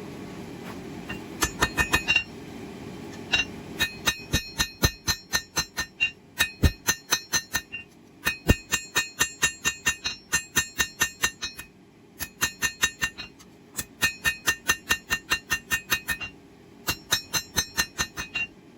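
Hand hammer striking hot 1084 high-carbon steel on an anvil while forging a small knife, in runs of quick ringing blows, about four a second, broken by short pauses.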